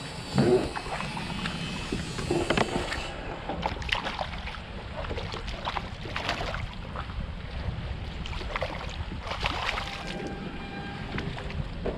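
Wind rumbling steadily on the microphone out on open water, with a handful of short sharp noises scattered through it. The loudest of these comes about half a second in.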